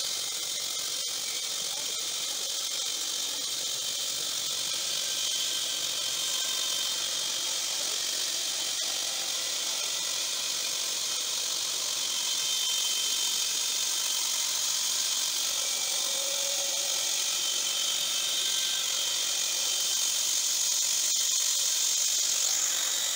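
Horizontal band sawmill running with its band blade cutting lengthwise through a log: a steady high hiss with a faint whine that grows slightly louder as the cut goes on.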